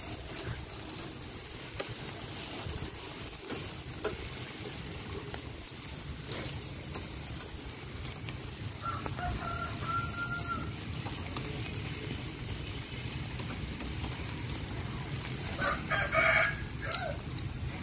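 A rooster crowing twice: a held call about nine seconds in, and a louder one near the end. Under it runs a steady hiss from skewers of pork and shrimp grilling over charcoal, with a few light clicks.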